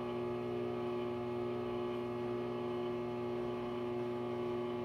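Steady electric hum from the motors of antique rotating mannequin display pedestals that are switched on and running.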